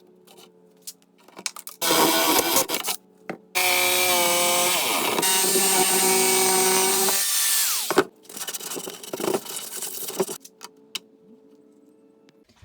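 Power tool cutting into the wooden back of a box: a short burst, then a run of about four seconds in which the motor's pitch drops and then winds down, followed by lighter knocks and clatter.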